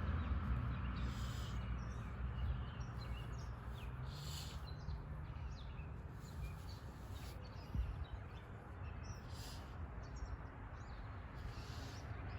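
Birds chirping in short, scattered calls every few seconds over a steady low rumble of outdoor ambience.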